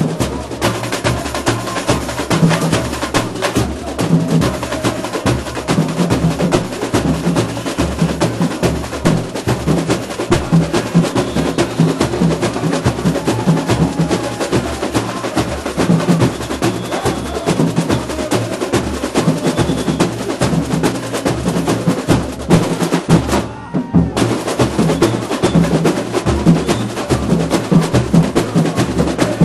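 Samba school bateria playing a batucada: deep surdo drums beat a steady pulse under fast snare and small-drum rattling. The playing drops out for a moment about three-quarters of the way through, then comes back in.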